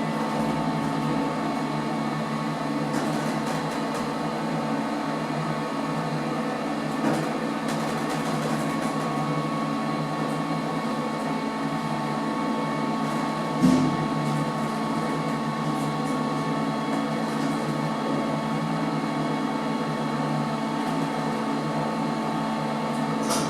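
Passenger lift car travelling down between floors: a steady hum of the lift machinery and ventilation with several steady tones, and one brief thump a little after halfway.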